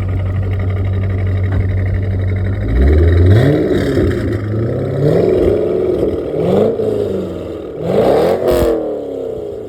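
C5 Corvette's 5.7-litre V8 idling steadily, then revved up hard about four times, the pitch climbing and falling back with each blip.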